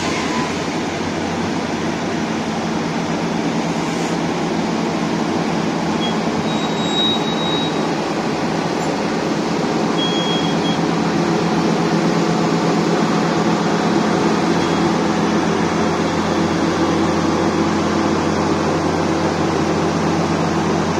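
Hitachi EX1200 hydraulic mining excavator running close by: a steady diesel engine drone with its hydraulics working the arm and bucket, growing slightly louder.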